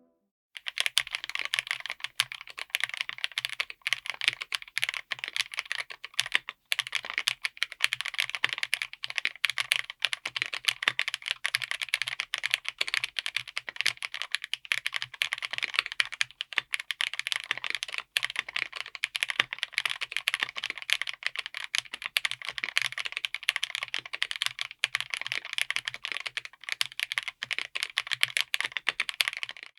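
Continuous fast typing on a full mechanical keyboard with BerserKeys Wolf Warrior linear switches, all-POM, mounted on an FR4 plate: a dense, irregular patter of keystrokes with no gaps longer than a moment.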